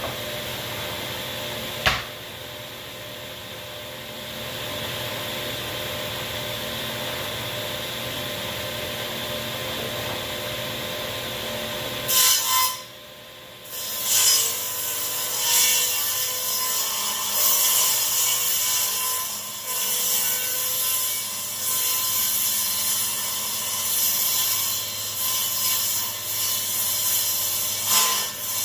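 Delta table saw running with a steady hum, then ripping along the edge of a maple board from a little under halfway in. The blade cutting the wood gives a loud, uneven sawing noise that rises and falls as the board is fed through.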